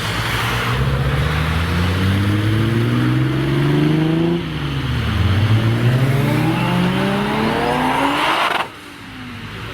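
Toyota Supra's 2JZ straight-six accelerating hard: revs climb for about four seconds, dip at a gear change, then climb again through the next gear. The sound cuts off suddenly near the end.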